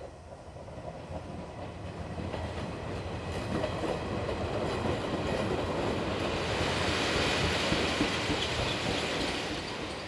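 Electric commuter train on the Izuhakone Railway Daiyuzan Line approaching and running past, its wheels clattering over the rails. It grows steadily louder with a rising hiss, then begins to fade near the end.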